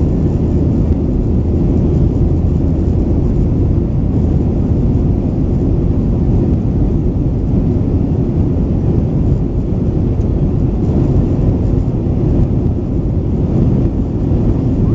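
Steady low rumble of a Boeing 737-900ER in flight, its CFM56-7B engines and the airflow over the fuselage heard from inside the passenger cabin.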